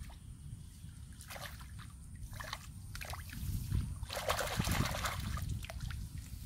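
Hands groping through shallow muddy water, making small irregular splashes and trickles, busiest about four seconds in.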